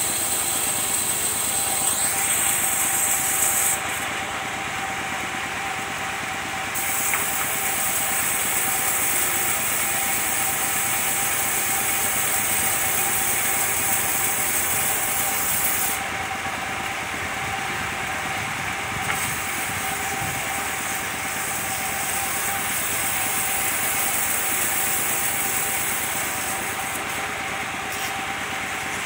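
Engine-driven circular sawmill running steadily with a constant whine, its blade ripping coconut wood with a high hissing rasp. The rasp drops away for a few seconds three times, as one cut ends and the next plank is fed in.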